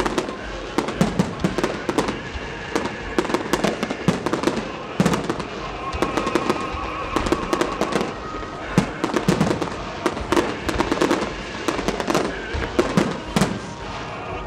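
Professional aerial fireworks display: many shells bursting in quick succession, a dense run of sharp bangs and pops.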